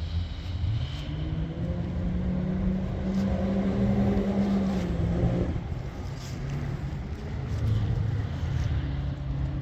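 Engine of an off-road competition safari vehicle under power, its pitch climbing over the first couple of seconds and holding, then falling away about five seconds in before building again near the end.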